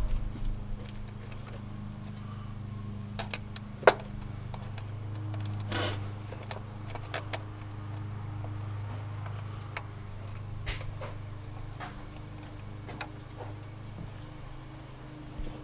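Scattered clicks and light knocks of a screwdriver and hard plastic as a distributor cap is fitted and screwed down on a Nissan 240SX's distributor, the sharpest about four seconds in, over a steady low hum.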